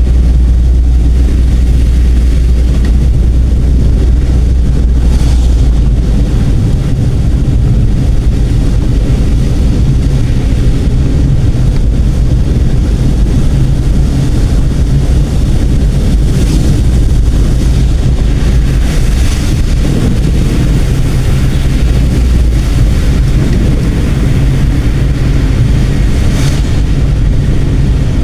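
Car driving: a loud, steady low rumble of road and engine noise, its low hum shifting in pitch about six seconds in, with a few brief hissy swells.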